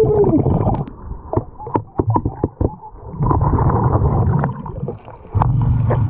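Underwater sound of a diver's exhaled air bubbling in low rumbling stretches, with quieter gaps between breaths. Sharp clicks of gravel and stones shifting on the riverbed come through, thickest in the quiet stretch near the start.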